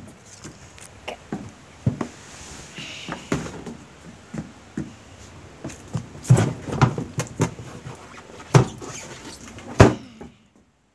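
Irregular knocks, bumps and scrapes of a ramp being lifted and shifted about on a wooden deck, mixed with camera handling noise. The heaviest thumps come about six, eight and a half and ten seconds in.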